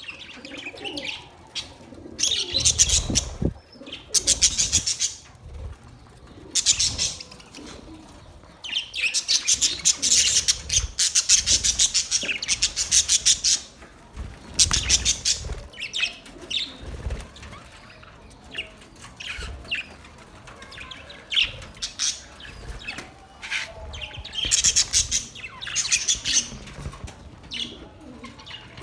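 Budgerigars chirping in several long runs of rapid high notes, with scattered single chirps in between and a few low thumps.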